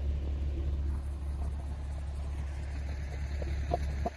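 Steady low rumble, with a few faint taps near the end.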